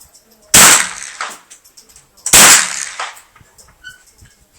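Two single shots from a Heckler & Koch 416 .22 LR semi-automatic rifle, about two seconds apart, each a sharp crack with a short ringing tail.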